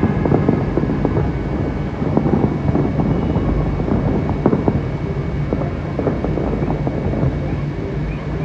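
Dense outdoor din: a steady low rumble with many small pops and knocks scattered through it, and wind on the microphone.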